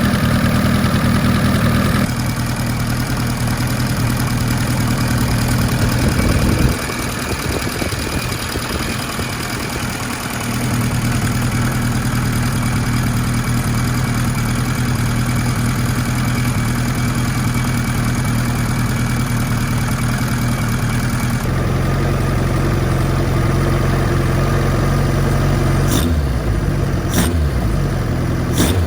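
Kawasaki Z1-R's air-cooled inline-four engine running on a stand. It runs steadily with a few changes in engine speed: it dips and runs rough for a few seconds early on, settles, picks up again later, and makes a few quick rev changes near the end. It is noisy at both the top end and the bottom end, the abnormal noise it was sent in to have repaired.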